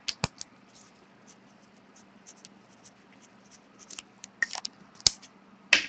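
Hands handling a sealed pack of trading cards: faint scattered clicks and short scratchy rubs, over a low steady hum.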